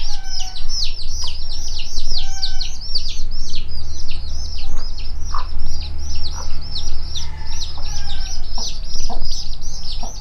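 A brood of baby chicks peeping without pause, many high, short, downward-sliding cheeps a second, with a few lower clucks from the mother hen among them.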